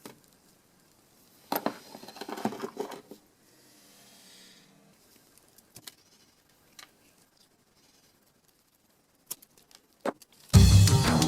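A cluster of small clicks and knocks, a faint brief rustle, then a few isolated clicks. Loud music with drums starts near the end.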